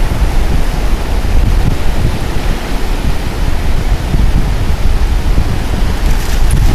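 Ocean surf washing onto the beach, heard as a steady rushing noise, with wind buffeting the microphone as a heavy low rumble.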